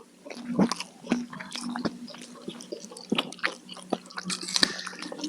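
Close-miked chewing of food: a quick run of wet mouth clicks, smacks and squishes, over a faint steady low hum.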